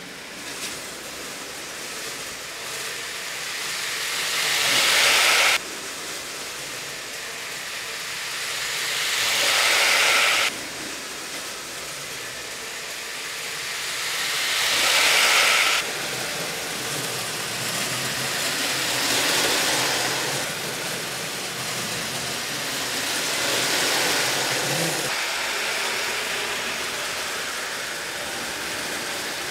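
HO-scale slot car trucks pulling long trailer trains around a plastic slot track: the whir of their small motors and wheels running in the slots. It swells as the rigs come round and drops off sharply as they pass, about every five seconds, then rises and falls more softly.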